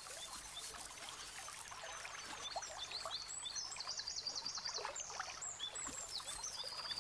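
European otter cubs calling: a string of short high-pitched chirps and whistles, with a fast repeated trill about three and a half seconds in, over faint scuffling.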